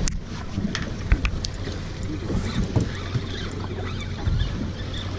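A small boat's engine humming steadily under wind and water noise, with a few sharp clicks and knocks in the first second and a half.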